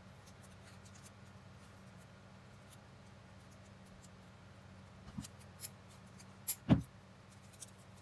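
Thin bamboo strips being woven by hand: faint rustles and small clicks, then a few sharper clicks and one loud knock in the second half, over a low steady hum.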